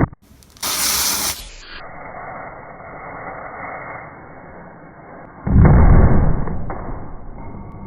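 Small firecracker going off: a brief sharp hiss about half a second in, then a sudden loud bang about five and a half seconds in that dies away over a couple of seconds.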